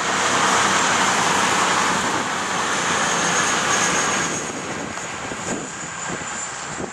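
CrossCountry Voyager diesel multiple unit passing at speed, a loud rush of wheel and air noise with a thin high whine, which falls away about four seconds in as the train draws off.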